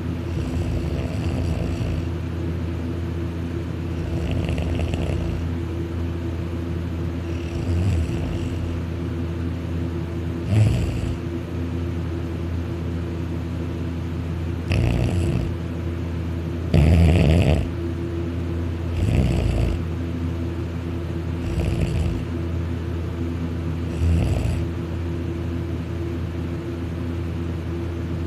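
A man snoring loudly in deep sleep on his back with his mouth open, about nine snores two to three seconds apart, some of them high-pitched, the loudest about 11 and 17 seconds in. A steady low hum runs underneath.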